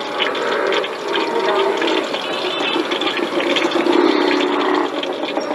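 Orange-battered eggs deep-frying in a steel pan of hot oil: a steady crackling sizzle.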